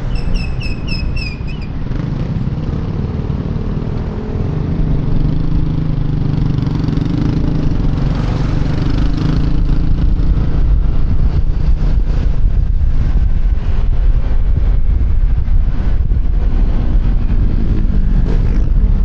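QJMotor Fortress 160 scooter's single-cylinder engine running under way, heard through wind and road noise on a helmet-mounted microphone. It gets louder from a few seconds in as it picks up speed. A short run of about five quick high chirps sounds in the first second and a half.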